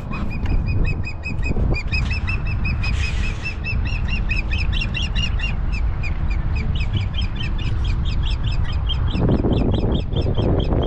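Osprey calling: a rapid, steady series of high whistled chirps, several a second, over wind rumbling on the microphone.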